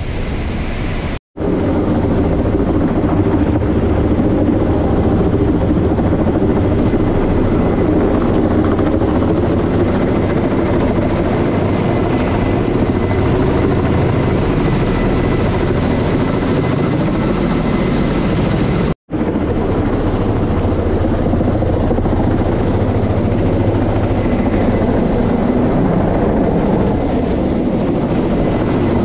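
Kamov Ka-32 helicopter flying overhead: the steady, loud beat of its coaxial contra-rotating rotors over the running of its twin turboshaft engines. The sound cuts out briefly twice, about a second in and again just past the middle.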